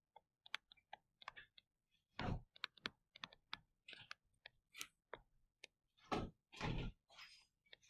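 Light irregular clicks and taps of a stylus on a touchscreen while handwriting numbers, with a few heavier knocks about two seconds in and again near six to seven seconds.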